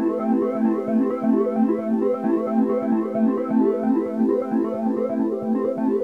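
Background music made of a quick, even run of short pitched notes.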